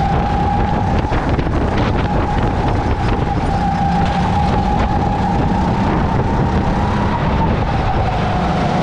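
Rental racing kart's engine running at speed through corners, recorded onboard: a steady engine note over a low rumble, dipping slightly near the end.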